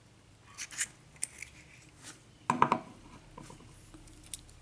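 Small metallic clicks and clinks of lock pins and a small tool being handled while the pins of an Assa six-pin lock cylinder are loaded back in, with a louder short rattle about two and a half seconds in.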